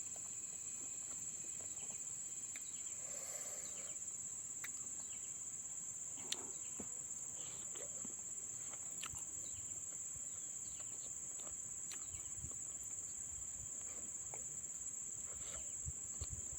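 Insects, crickets or similar, giving a steady high-pitched trill, with a few faint scattered clicks and taps.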